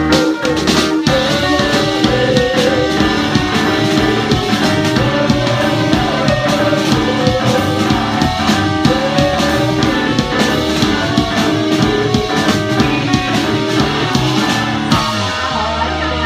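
Live band playing instrumental rock: drum kit, electric guitar and keyboards together. Near the end the drumming breaks off and held low notes ring on.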